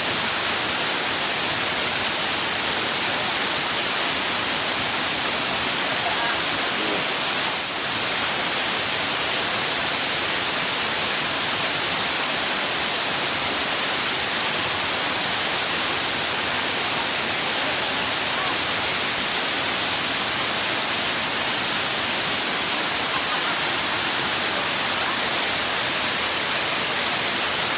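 Waterfall's rushing water: a loud, steady hiss, strongest in the high end.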